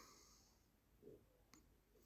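Near silence between snores of a sleeping person: a soft breath out fades away in the first half second, and a faint click comes about one and a half seconds in.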